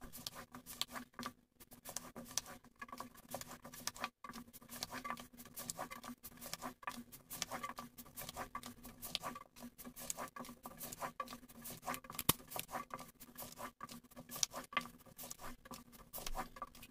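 A long, thin wooden rolling pin (oklava) rolling out a thin sheet of floured dough on a wooden board: soft, irregular clicks, taps and scrapes of the pin and the hands working the dough. A faint steady hum runs underneath.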